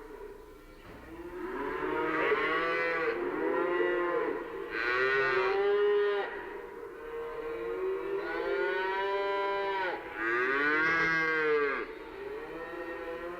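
Cows mooing: a series of long, drawn-out moos, one after another with short gaps, some overlapping at different pitches.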